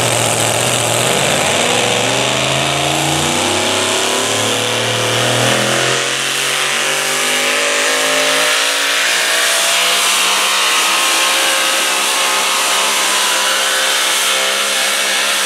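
Naturally aspirated engine of a super modified four-wheel-drive pulling truck running flat out while it pulls a sled. Its pitch climbs steadily as the truck gains speed down the track.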